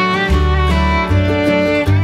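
Instrumental background music, with held melodic notes over a bass line that changes note every half second or so.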